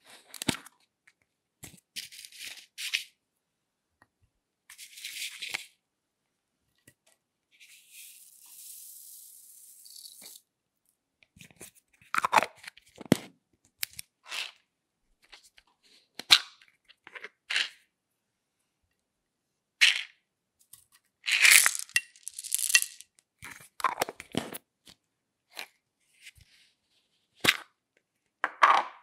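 Small plastic cases and cups being opened and handled: scattered clicks, snaps and crinkly rustles. A soft hiss of glitter being poured into a glass dish comes about eight seconds in.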